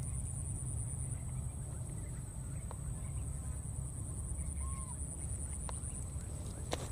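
Outdoor ambience: a steady low rumble under a continuous high-pitched whine. A single short chirp comes about five seconds in, and a sharp click near the end.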